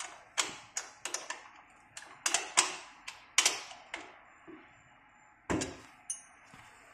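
Steel parts of a sit-up bench clinking and knocking together as the connecting rod is worked onto the frame and a bolt and hex wrench are handled: a quick, irregular run of sharp taps, a pause, then a louder knock about five and a half seconds in.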